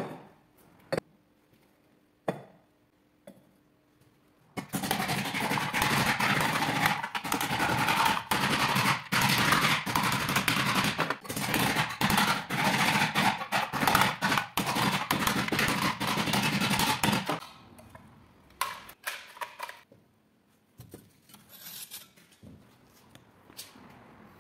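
A few sharp knocks, then a long run of rapid, loud hammer blows on a copper mug clamped in a bench vise as it is beaten flat, stopping abruptly; a few scattered light clicks and knocks follow.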